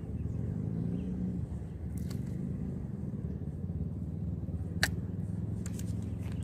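Steady low engine drone, with a single sharp click about five seconds in.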